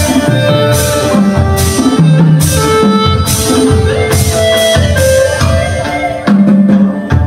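Chầu văn ritual music accompanying a spirit-medium dance: plucked strings over a steady beat of drum and wooden clapper.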